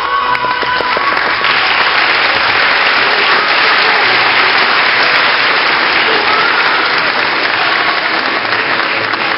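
Audience applauding a curtain call in a theatre hall. The applause is loud and steady, swelling a little about a second and a half in.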